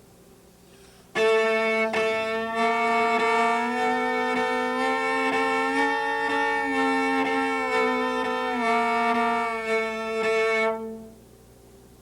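Cello bowed in thumb position, playing a thumb-gliding warm-up: a sustained note that slides slowly up in pitch and back down. It starts about a second in and stops shortly before the end.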